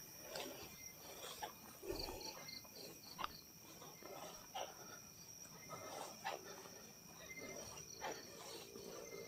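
Crickets and other night insects chirping faintly: a steady high trill, with a short run of quick chirps about two seconds in. Scattered faint clicks and rustles sound over it.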